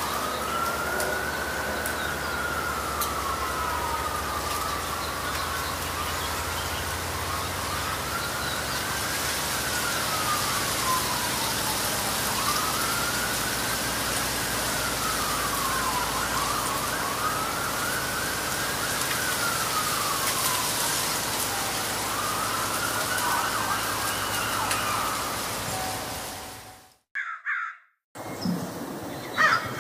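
An emergency-vehicle siren wailing, its pitch slowly rising and falling over and over above a steady hiss, until it cuts off shortly before the end. A crow's caws begin right at the end.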